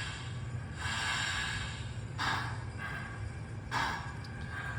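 MTH model of the Nickel Plate Road 765 steam locomotive chuffing slowly through its sound system: three soft hissing chuffs, about one every one and a half seconds, over a steady low hum.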